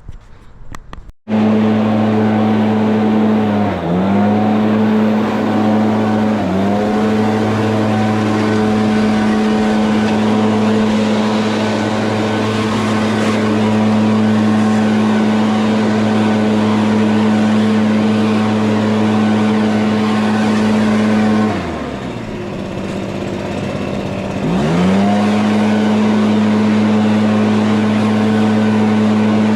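Petrol lawn mower engine running steadily at high speed, coming in abruptly about a second in. The pitch dips briefly twice as it bogs under load, then falls away for about three seconds near the end before picking back up to full speed.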